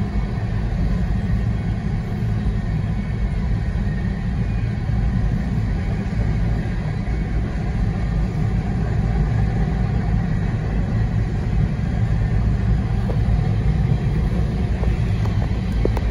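Steady low rumble of a Union Pacific grain train's freight cars rolling through the crossing, heard from inside a car stopped at the gates.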